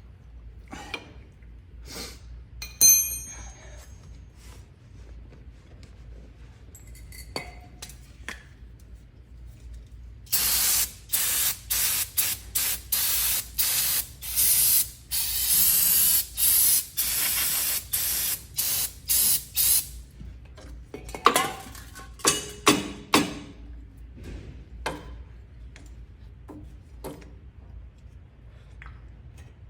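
Pressurised spray hissing in a quick string of short bursts for about ten seconds, with a few sharp knocks and clicks of handling before and after.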